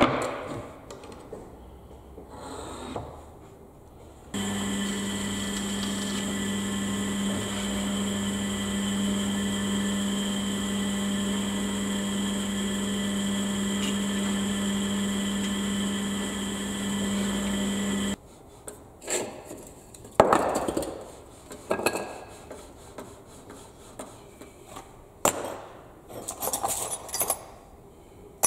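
An electric power tool's motor runs steadily for about fourteen seconds, switching on and off abruptly, while woodwork goes on. Scattered knocks and clicks of wood and tools being handled come before and after it.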